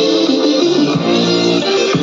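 Guitar music playing through a small DIY Bluetooth speaker built on a 5+5 watt amplifier module, in a sound test.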